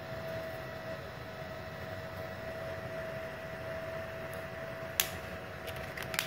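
Small 450-watt IGBT inverter welding machine switched on and idling, its cooling fan running with a steady hum and a steady tone. Two sharp clicks, about five seconds in and near the end.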